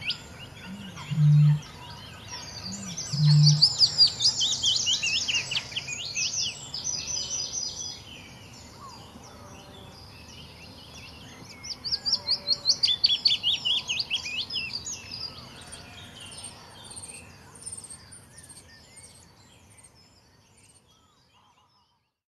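Eurasian bittern booming: two short, deep booms about two seconds apart in the first few seconds. Small birds sing in high twittering bursts over it, and the recording fades out near the end.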